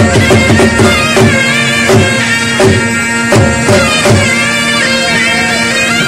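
Background folk-style music: a wind-instrument melody over a steady drone, with drum beats that stop about four seconds in.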